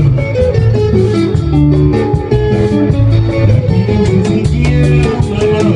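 Live band playing: electric guitar and bass guitar over drums, with a steady beat.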